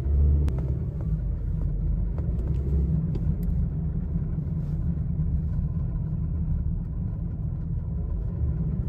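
Steady low rumble of a moving 2020 Toyota Corolla turning right, carrying the rubbing noise from the rear wheel that shows only on right turns: a caliper hook left behind after a brake job rubbing against the tire as the body rolls onto that side.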